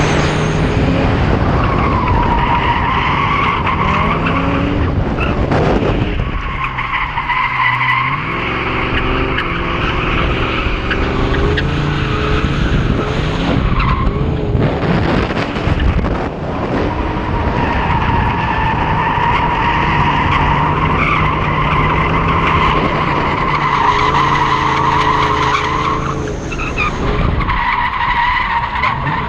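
Ford Mustang drift car sliding: its engine held at high revs and its tyres squealing in long stretches. The squeal breaks off three times, briefly, while the engine note drops and climbs again.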